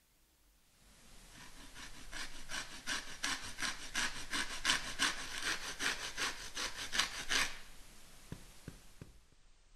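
Lemon peel rubbed back and forth across a handheld flat metal grater, zesting: quick rasping strokes, about three a second, starting about a second in and stopping near the end.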